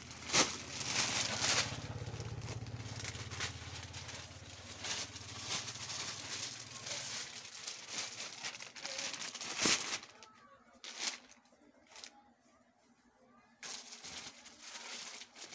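Folded cloth and plastic-wrapped fabric packets rustling and crinkling as they are handled and laid out, with a few sharp crackles. It goes quieter for a few seconds about two-thirds through, then the rustling resumes.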